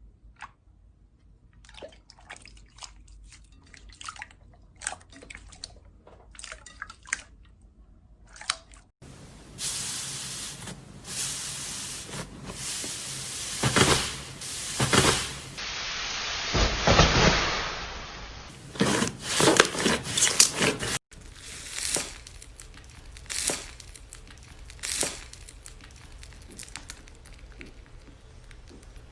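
Slime being squeezed and pressed by hand, making wet squishing, popping and crackling sounds. It opens with a run of small sticky pops, then turns into longer, louder stretches of crunchy squelching, changing abruptly several times between clips.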